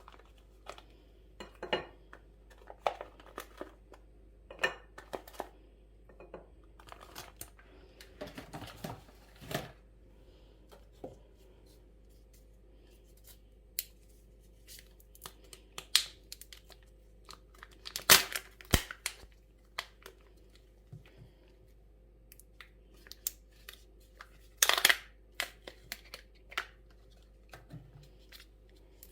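Food packaging being handled in a kitchen: plastic wrappers crinkling and tearing open, with scattered light clicks and clatter of dishes and utensils. The loudest rustles come about two-thirds of the way in and again near the end.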